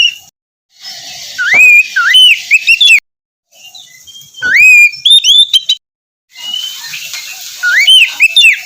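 Oriental magpie-robin (kacer) singing loud whistled phrases with quick rising and falling slides, in three bursts that each cut off abruptly into silence.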